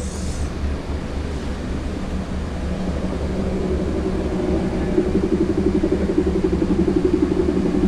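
Steady mechanical hum. A throbbing, engine-like drone grows louder through the second half.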